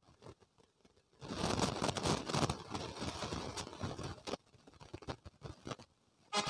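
Crackly rustling and scraping handling noise close to the microphone, loudest for about three seconds after the first second, then a few scattered clicks.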